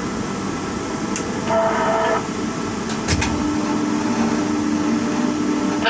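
Tower crane machinery running, heard from the operator's cab: a steady rushing noise. A click comes about three seconds in, and after it a steady low hum sets in.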